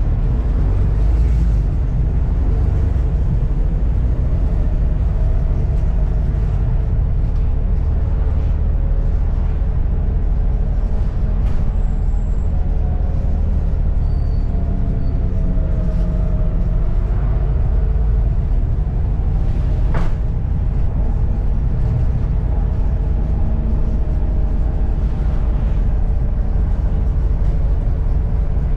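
Volvo B7TL double-decker bus's diesel engine and drivetrain running under way: a steady low rumble with faint whining tones that rise and fall. A sharp click comes about twenty seconds in.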